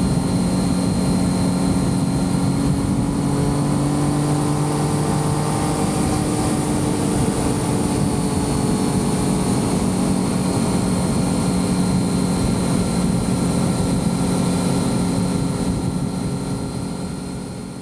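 Triumph Street Triple's inline-three engine running at a steady cruising speed, with its pitch drifting slightly as the throttle changes, over wind and road noise.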